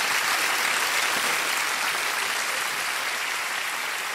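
Studio audience applauding, a dense steady clatter of clapping that eases slightly near the end.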